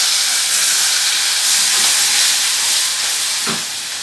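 Chopped onion hitting hot oil in a kadai, sizzling with a loud, steady hiss that eases a little near the end.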